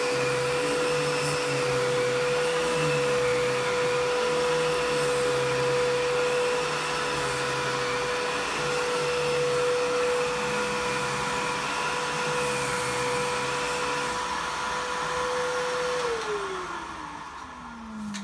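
Filter Queen Majestic canister vacuum running with a steady whine while its power nozzle is pushed over carpet. Near the end the motor's pitch sinks steadily as it winds down.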